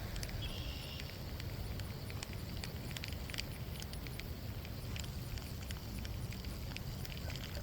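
Wind rumbling steadily on the microphone, with scattered light clicks and rustles and a brief thin high tone about half a second in.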